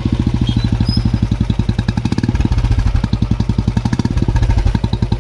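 Royal Enfield Classic 350's single-cylinder engine idling through an aftermarket Indori pod silencer, with a steady, even run of exhaust beats and not much bass.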